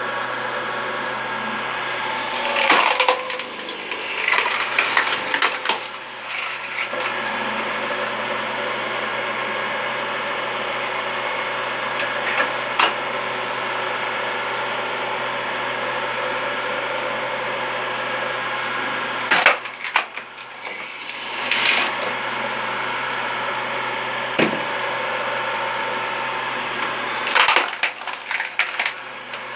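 Electric motor of a screw-cone log splitter running steadily while its spinning threaded steel cone bores into log rounds, which crack and splinter as they split apart. The splitting comes in several loud bouts of cracking over the steady motor hum.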